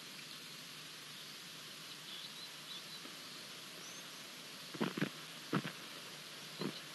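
Steady outdoor ambience hiss with a few faint high chirps, then four short sharp knocks, two close together, then one, then another, in the second half.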